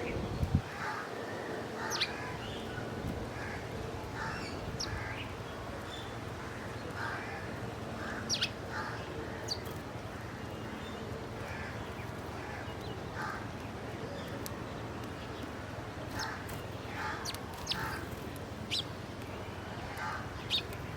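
Crows cawing again and again, with small birds giving sharp high chirps in between, over a steady low hum.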